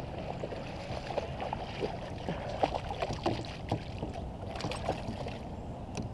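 A bass splashing at the surface beside a kayak as it is pulled in and lifted out, with scattered short knocks and handling noise against the hull over a steady low rumble. A louder splashy stretch comes about four and a half seconds in.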